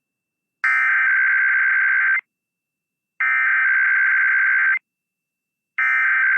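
Emergency Alert System SAME header: three identical bursts of high-pitched buzzy digital data tones, each about a second and a half long with about a second of silence between. It is the coded start of a Required Weekly Test alert.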